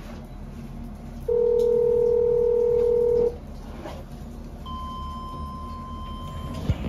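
Electronic signal beeps from a Mid Western lift's landing controls, modernised by Orona: a loud, steady low beep lasting about two seconds, then, after the call button is pressed, a fainter, higher beep of about two seconds. A sharp thump comes near the end.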